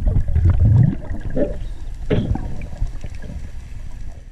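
Water rushing and sloshing over an underwater camera as a diver descends, a loud low rumble with swishes and a few knocks that fades toward the end.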